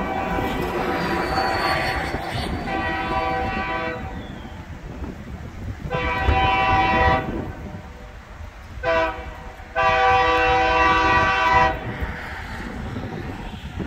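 Diesel locomotive's air horn blowing the grade-crossing signal as the train approaches: long blasts, then a short one and a final long one about ten seconds in. A low rumble of the train and wind runs underneath.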